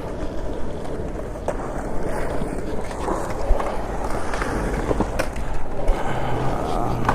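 Skateboard rolling on concrete: a steady rumble of the wheels, broken by a few sharp clicks.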